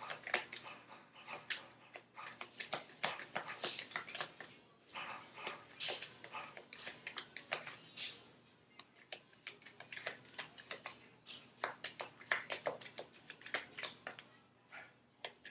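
Tarot cards being shuffled and handled: a dense, irregular run of soft clicks and snaps.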